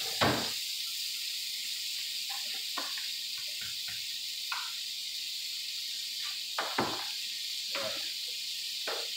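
Butter sizzling as it melts in a smoking-hot wok: a steady high hiss with a few scattered small ticks and knocks, the loudest a sharp knock just after the start.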